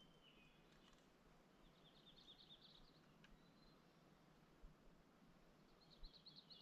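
Near silence with faint birdsong: a short falling whistle at the start, then two quick high trills, one about two seconds in and one near the end.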